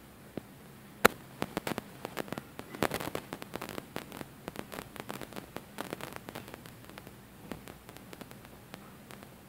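An irregular run of sharp clicks and crackles. One loud click comes about a second in, a dense cluster follows, and the clicks thin out toward the end.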